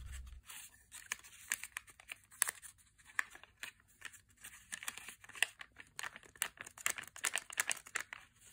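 Origami paper being folded and creased by hand: a long run of irregular, sharp crinkles and crackles.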